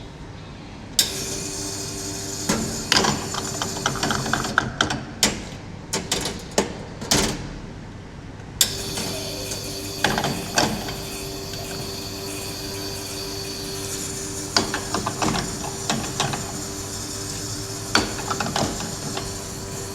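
Espresso machine running with a steady hum, interrupted briefly partway through, while metal parts clink and knock repeatedly.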